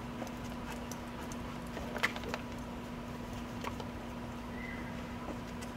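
Footsteps of a person and a leashed dog walking on asphalt: light, irregular taps and ticks, over a steady faint hum.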